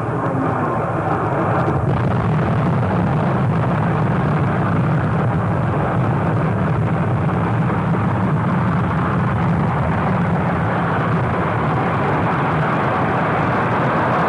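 V-2 ballistic missile's liquid-fuelled rocket engine at liftoff: a loud, steady rush of noise with a deep rumble underneath, swelling over the first couple of seconds and then holding level.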